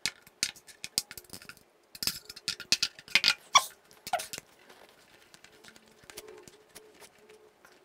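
Fast-forwarded table handling: tools and small objects picked up and set down in quick succession, a rapid run of clicks and scrapes with a few brief squeaky chirps, then fainter cloth rubbing on a phone's back.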